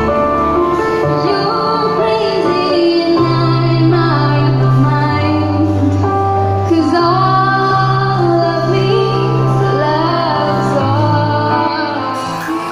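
A woman singing a slow ballad into a microphone over a recorded backing track, with held low bass notes that change every second or two under her sung melody.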